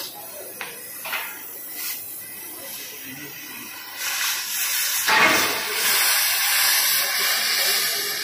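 Gas cutting torch hissing as it cuts through steel, with a few short pops in the first two seconds. From about four seconds in the hiss grows much louder and fuller, and stays so.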